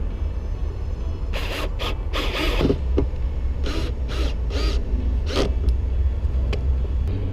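Boat seats being handled and fitted back into place: several short scraping and creaking bursts in the first half, over a steady low rumble.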